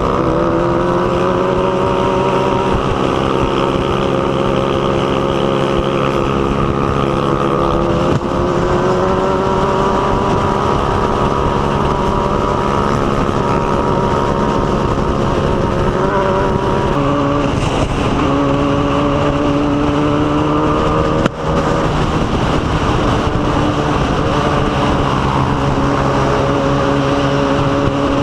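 Motorcycle engine running under way at a steady cruise, with wind rushing over the microphone; the engine pitch shifts twice, about 8 and 17 seconds in, as the rider changes speed or gear. A single sharp click about 21 seconds in.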